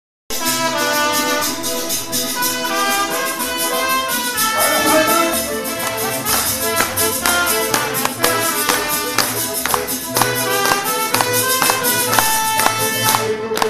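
Mariachi band playing: a trumpet melody over strummed guitars, with a steady rhythm.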